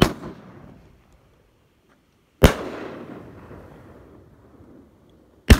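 Aerial shells from a consumer firework cake breaking overhead: three sharp, loud bangs, spaced about two and a half to three seconds apart, each dying away over a second or two.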